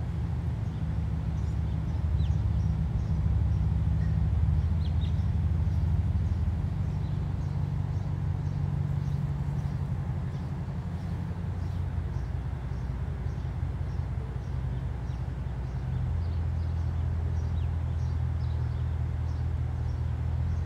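A steady low rumble that shifts in level a few times, with faint, short, high bird chirps repeating throughout.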